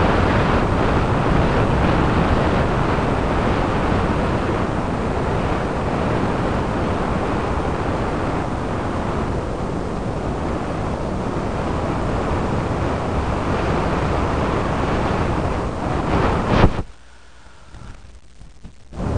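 A loud, steady rushing noise that cuts off suddenly about two and a half seconds before the end, then comes back just at the end.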